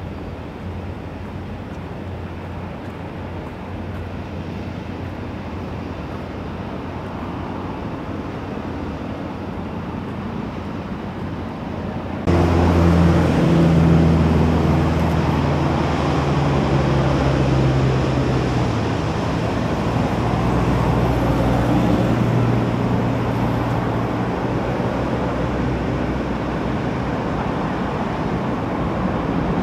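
Steady low outdoor rumble of engine noise. About twelve seconds in it jumps abruptly louder, with a deep hum of several steady tones that drops in pitch a few seconds later.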